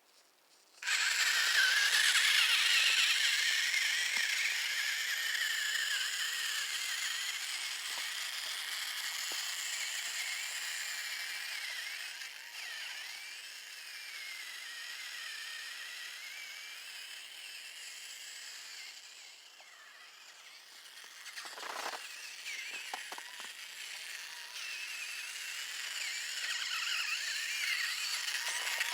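Electric motor and gears of an RC crawler truck whining, the pitch rising and falling with the throttle, starting abruptly about a second in. A few knocks around two thirds of the way through.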